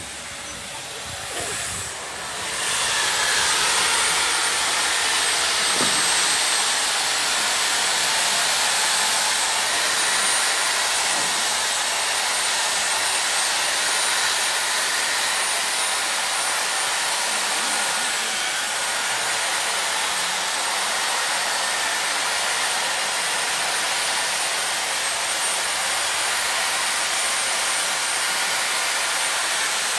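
Handheld electric power tool cutting into a block of ice, running steadily with a high whine over a hiss. It starts about two and a half seconds in.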